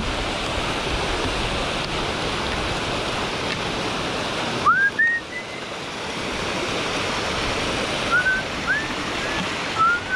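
Water pouring over a low concrete dam spillway into whitewater: a steady rush. A few short rising chirps cut through about halfway in and again near the end.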